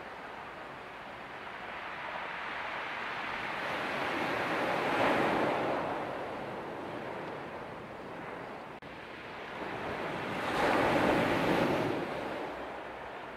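Sea waves washing in on the shore, a steady surf hiss that swells up twice as waves break.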